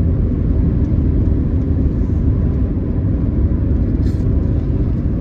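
Steady low rumble of a car driving, heard from inside the cabin, with a brief faint tick about four seconds in.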